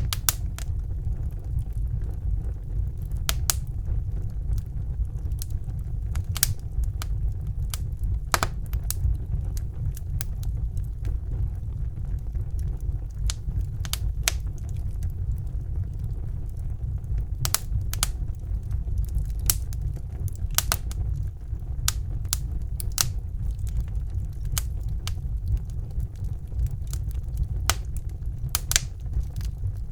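Wood fire crackling in a fireplace: irregular sharp pops and snaps, a few a second at most, over a steady low rumble.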